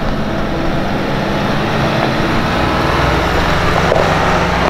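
Nissan Navara NP300 4WD driving slowly up a rocky dirt track, with engine and tyres crunching over gravel, loudest as it passes close by about four seconds in.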